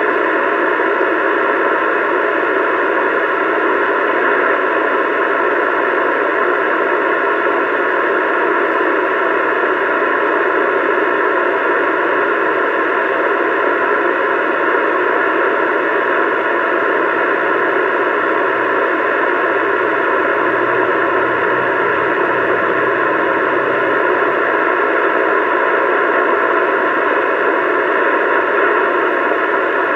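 Steady static hiss from a CB radio receiver's speaker, with nobody transmitting on the channel.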